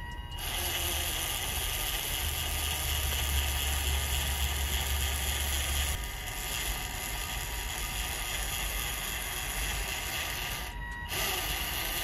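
Homemade RC Swaraj toy tractor's electric motor and gearbox whirring steadily as it drags the weighted pulling sled back. The whir stops about eleven seconds in.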